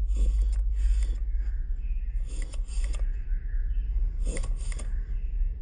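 A 1947 Ford 2N front-mount distributor's drive shaft being turned by hand, so the new breaker points snap open and shut as the four-lobe cam passes the rocker arm. This gives small sharp clicks in quick pairs, several times over, above a steady low hum.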